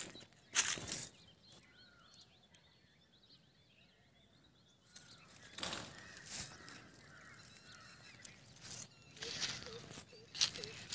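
Faint morning birdsong: scattered short chirps and calls from birds around the fields. Several brief rushes of noise on the microphone break over them, the loudest about half a second in and a cluster near the end.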